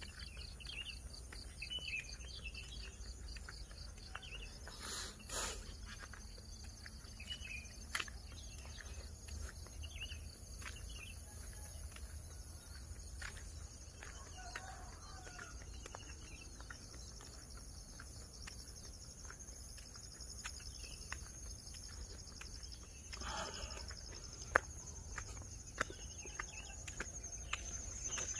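Faint rural morning ambience: scattered short bird chirps and a steady high insect hiss over a low rumble of wind on the microphone, with a few soft ticks.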